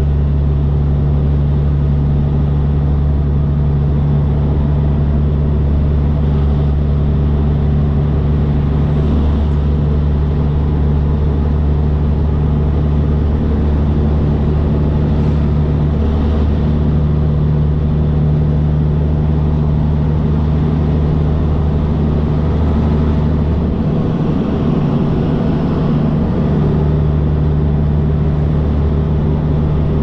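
Peterbilt 362 cabover semi truck's diesel engine running steadily at highway speed with road noise, a low even drone. The note briefly wavers about 24 seconds in, then settles again.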